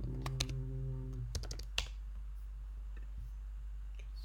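Laptop keyboard keystrokes: a few quick key clicks, then about two seconds in a single louder click as the login is submitted. A brief low steady hum sounds during the first second.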